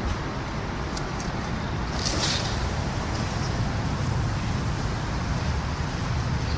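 Steady low rumble of distant traffic, with a brief hissing whoosh about two seconds in as a long surf-casting rod is swung through a distance cast and the line flies off the reel.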